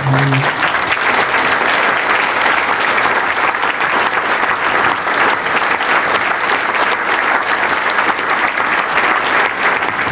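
Banquet audience applauding steadily, a dense sustained round of clapping.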